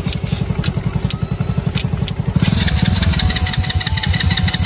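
A 125cc dirt bike's single-cylinder engine runs at idle, then picks up and runs faster and louder about halfway in as the throttle is opened. The tank is all but out of petrol.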